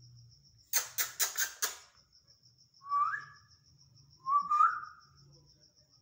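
Indian ringneck parrot giving four quick harsh squawks, followed by two short rising whistles a little over a second apart.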